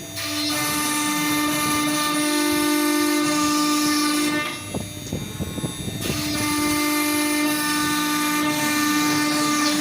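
CNC router spindle running with a steady high-pitched whine while cutting wood. About halfway through, the whine breaks off for a second or so into rougher, choppier noise, then comes back steady.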